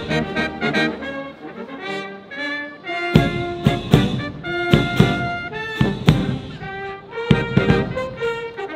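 Military fanfare band playing, brass holding chords over drum and cymbal hits, with the hits coming thick and fast from about three seconds in.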